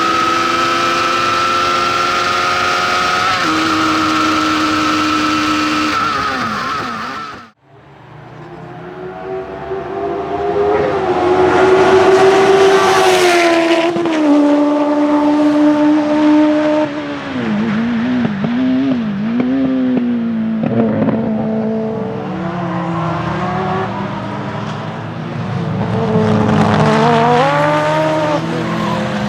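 Honda CBR1100XX inline-four motorcycle engine in a lightweight Fiat 126-based racing prototype, running at high revs. The revs rise and fall as it shifts through the gears. The sound breaks off abruptly about seven seconds in, then the engine builds again and revs up and down to the end.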